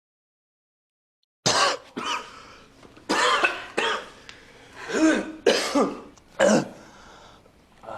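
A person coughing in a fit of several harsh coughs, starting about a second and a half in, some coughs ending in a short voiced catch.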